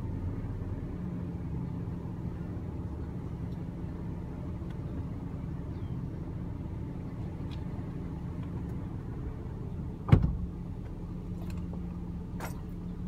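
Steady low hum of a Nissan Frontier pickup's engine running at idle. One sharp thump comes about ten seconds in.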